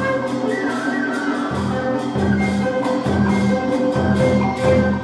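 Traditional Vietnamese water-puppet music: an instrumental ensemble of melodic instruments over drums. About one and a half seconds in, a steady low drum pulse comes in under the held melodic notes.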